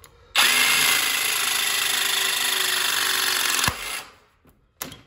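Battery-powered press tool running a press cycle on a 15 mm Conex B-press copper fitting. The motor starts suddenly, runs steadily for about three and a half seconds, then stops with a clunk as the press completes. A short click follows near the end.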